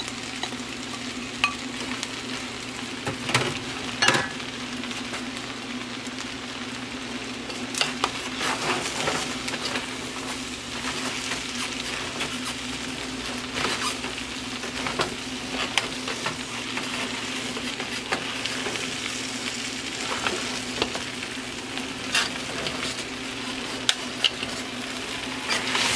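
Chow mein noodles, vegetables and chicken sizzling in a large metal pot on the stove as they are stirred and tossed with metal tongs. Scattered clicks of the tongs against the pot sound over a steady low hum.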